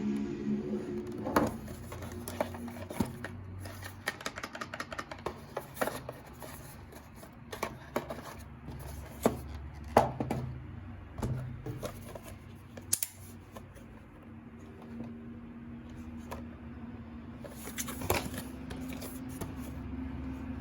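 Irregular clicks and taps of a plastic mechanical keyboard and its parts being handled, with a quick run of clicks about four to six seconds in, over a faint low hum.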